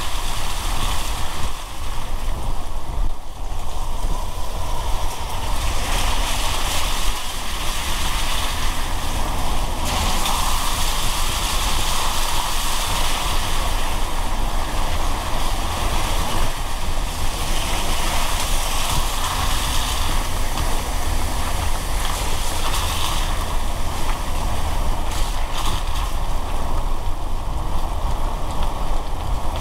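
Car driving on a wet road in the rain: a steady hiss of tyres and rain over a low road and engine rumble, the hiss swelling for a while midway.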